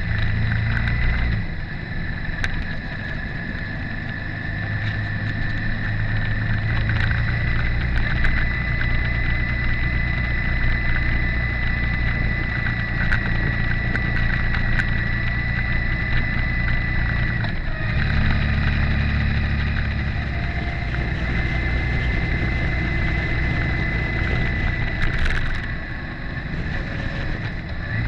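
Motorcycle engine running steadily under way, with a steady high whine over it and scattered light ticks. The engine note changes abruptly about two-thirds of the way in.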